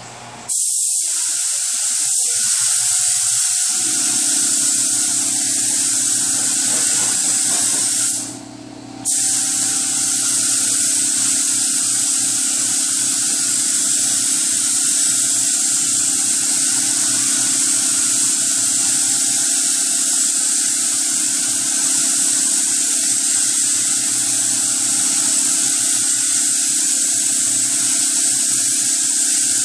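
Spray gun hissing steadily as adhesion promoter is sprayed over a car's repaired quarter panel, with a steady hum underneath. The spray starts about half a second in and stops for about a second near eight seconds in.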